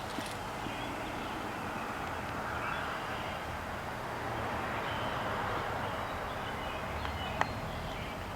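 Outdoor background with faint, short bird chirps over a steady hum, and a single sharp click near the end.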